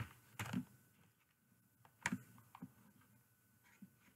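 A handful of faint, scattered clicks and taps, spaced irregularly, over a quiet room background.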